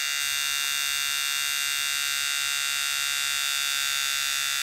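Electric beard trimmer running steadily with a high, even buzz, reading about 77 to 78 dB on a phone decibel meter held beside it.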